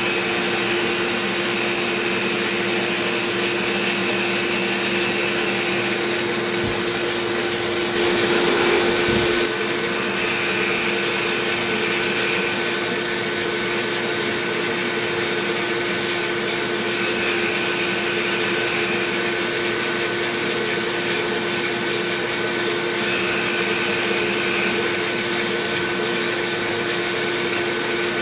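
CNC milling machine taking a light finishing pass with a quarter-inch end mill at about 4,000 RPM, under flood coolant: a steady spindle whine over the hiss of cutting and coolant spray. A higher cutting note comes and goes every six seconds or so as the tool works around the part, and there is a brief louder rush about eight seconds in.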